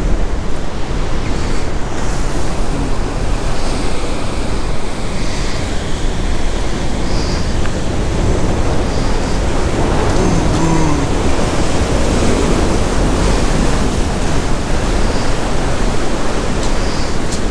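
Surf washing against rocks, a loud, steady rush of sea noise, with wind rumbling on the microphone.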